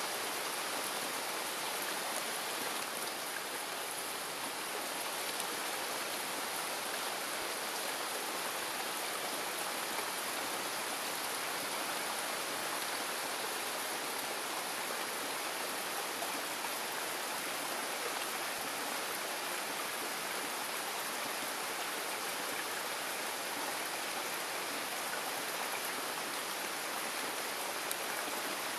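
Heavy rain shower falling on forest foliage, a steady, even hiss.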